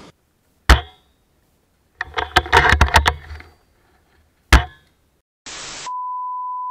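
Sharp, loud clanks: one on its own, a rapid cluster a second later, then one more. Then a short burst of TV static gives way to a steady test-pattern beep, the tone that goes with colour bars.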